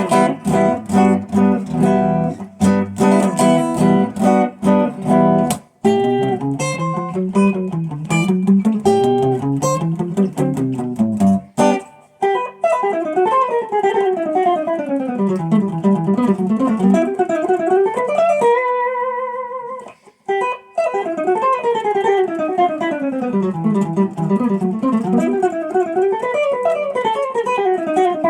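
Electric guitar played solo in G. Choppy repeated notes and chords come first, then fast single-note runs and arpeggios that climb and fall. About 19 seconds in there is a brief held note, then a short break.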